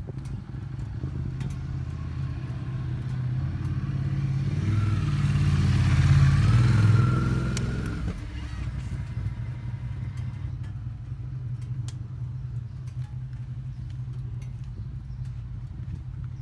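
Ducati Supersport S's 937 cc L-twin engine idling with a steady, lumpy beat. It swells louder for a few seconds around the middle, then settles back to the same idle.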